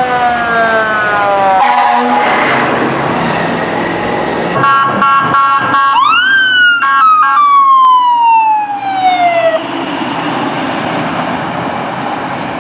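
Fire rescue trucks responding with sirens. First a siren wail falls in pitch, then about four and a half seconds in steady horn-like tones sound. About six seconds in a siren rises sharply and falls slowly over three seconds or so, and the rest is truck engine and road noise.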